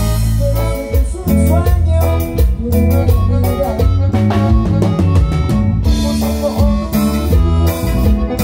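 A live band playing a Latin dance song: a strong bass line, drum kit and guitar under a melody.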